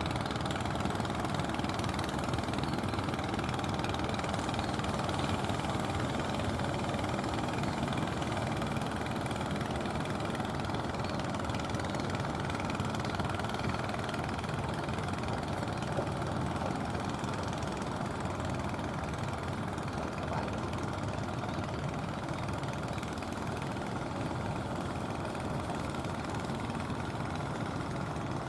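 An engine running steadily at idle, an even drone that does not change.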